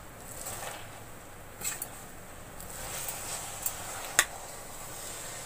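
Wooden spoon stirring a pot full of chopped raw spinach, the leaves rustling, with a few light knocks of the spoon against the metal pot; the sharpest knock comes about four seconds in.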